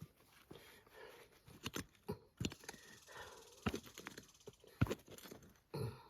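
Scattered soft scrapes and knocks of hand-digging through wet garden soil for potatoes, coming irregularly about once a second.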